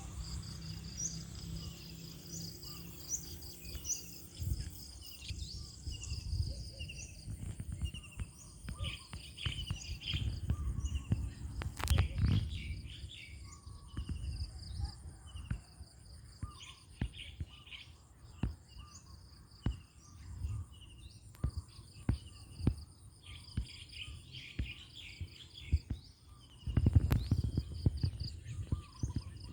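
Birds chirping over and over against a steady high insect drone, with bouts of low rumble that swell loudest about twelve seconds in and again a few seconds before the end.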